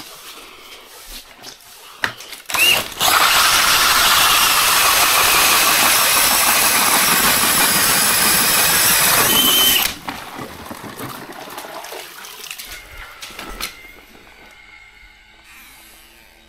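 Power ice auger drilling down through lake ice for about seven seconds: a loud, even grinding hiss of cutting ice and chips, with a short motor whine as it starts and as it stops. It is followed by quieter knocks and rustling.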